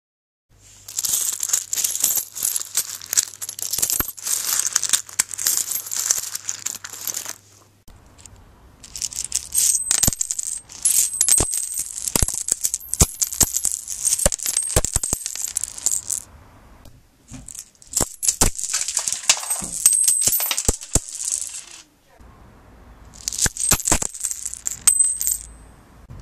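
Foley sound effect: dense rattling and jingling with sharp clicks, in four long bursts separated by short pauses.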